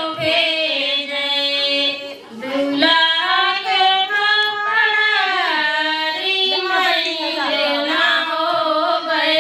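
A high voice singing a slow melody in long held notes that bend and waver, with brief breaths between phrases.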